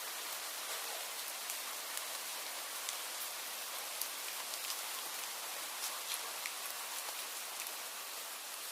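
Steady rain falling, an even hiss with scattered individual drops ticking sharply through it.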